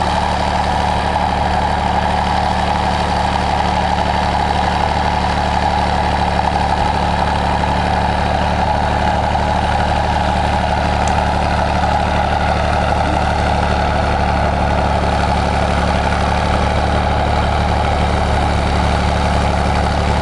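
International Harvester TD-24 crawler dozer's diesel engine running steadily.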